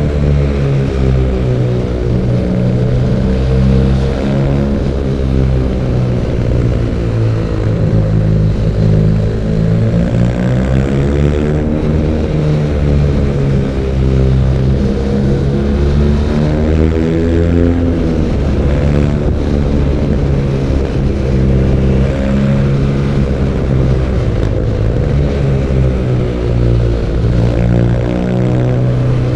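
BMW R nineT Urban G/S's stock boxer twin engine pulling on the road, its revs rising and falling again and again through throttle changes and shifts.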